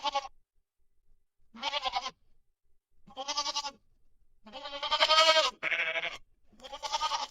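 Goat bleating six times in a row, each bleat short and quavering. The call a little past the middle is longer and louder than the rest.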